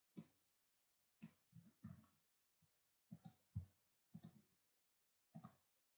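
Faint computer mouse clicks, scattered and often in quick pairs, as points are selected on screen.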